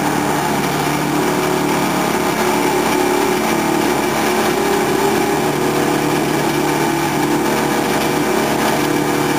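Jet dinghy's 750 cc two-stroke jet-ski engine running at a steady speed while the boat is held at the shore, its jet pump throwing a stream of water astern.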